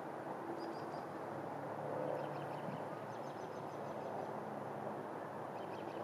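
Steady rumble of distant road traffic and wind. Faint, quick bird chirps come in short runs a few times.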